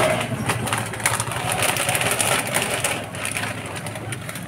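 Pancit bato noodles boiling in a brown sauce in a frying pan on a gas stove: a steady rush of bubbling with many small irregular pops, easing a little near the end.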